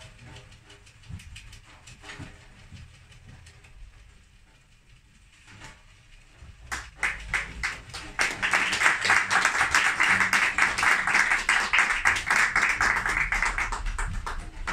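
Large frame drums (daf) being played: a few soft taps at first, then from about seven seconds in a fast, loud run of strikes with a continuous shimmering rattle of the frames' metal rings.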